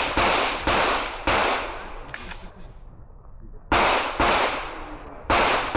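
Gunshots on a shooting range: three quick shots about half a second apart, a pause of over two seconds, then two more close together and a single shot near the end, each with a short ringing echo.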